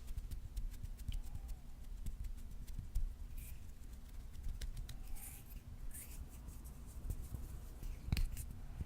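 Close-up ASMR hand sounds: fingers scratching and brushing skin near the microphone, a quick run of small dry clicks and scrapes. There are a few soft breaths at about three and a half, five and six seconds in.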